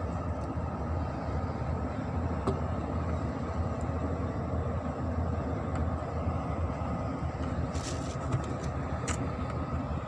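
Steady low wind rumble over choppy open water, with a few faint clicks about two and a half seconds in and again near the end.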